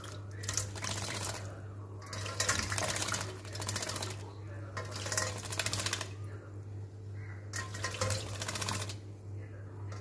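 Myna bird bathing in a stainless-steel bowl of water, fluttering its wings and splashing in repeated bursts of about a second each, several times over.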